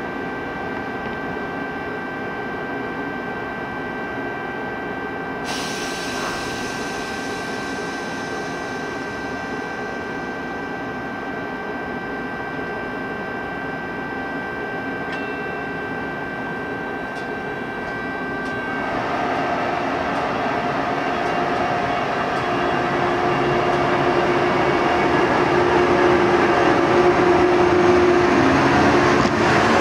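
ETR 500 Frecciabianca high-speed electric train standing at the platform with a steady electrical hum of several fixed tones. About two-thirds of the way in it starts to pull away, and the running noise and motor tones grow steadily louder as the power car draws past.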